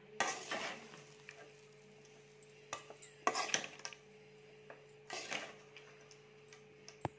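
A spoon scraping and clinking against an aluminium kadai as mint fried rice and fried groundnuts are stirred together, in about five short bouts a second or two apart, over a faint steady hum.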